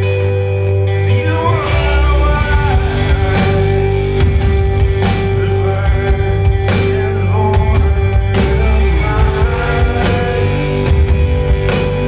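Live rock band playing: electric guitars, bass guitar and drums with a male lead vocal. The drums and bass come in about two seconds in under sustained guitar chords.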